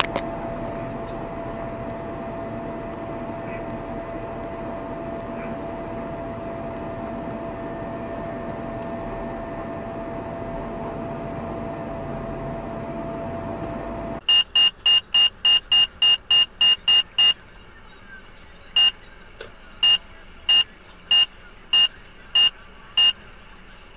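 Steady vehicle running and road noise with a thin constant hum, recorded by a dashcam. It cuts off about 14 seconds in and gives way to rapid, shrill electronic beeps, about four a second for three seconds, then slower beeps about every 0.6 s.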